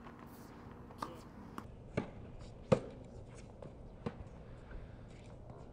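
Tennis balls struck with rackets on a court: sharp pops at irregular intervals, the loudest about two and a half seconds in, over faint background noise.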